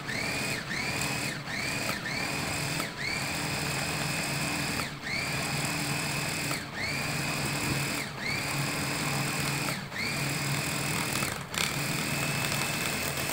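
Electric mini chopper pulsed on and off as it chops parsley: the motor whines up to speed at each press and drops out between them, about ten pulses. They are short at first, then last one to two seconds each.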